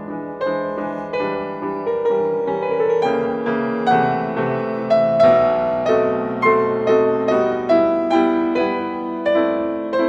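Background piano music, a gentle melody with notes struck at an even pace of about two a second.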